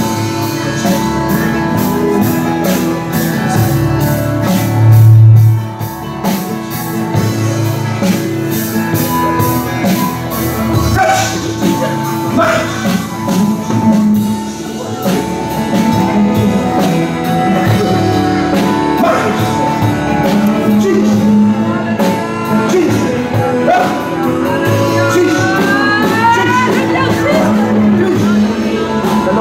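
Church worship music: held keyboard chords and a steady beat, with singing. Voices of the congregation praying and calling out can be heard over it.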